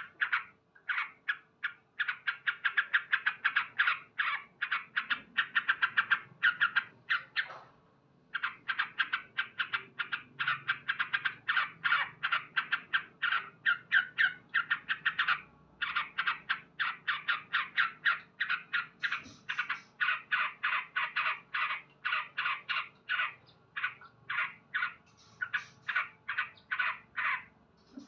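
Male yellow-vented bulbul (trucukan) singing loudly in long runs of rapid, chattering notes, breaking off briefly twice.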